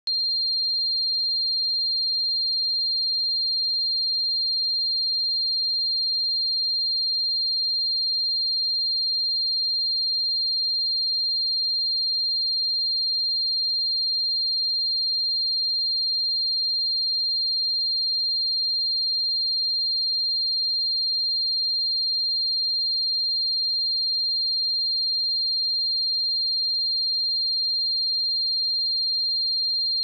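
A pure 4194 Hz sine-wave test tone: one steady, high-pitched note held without change.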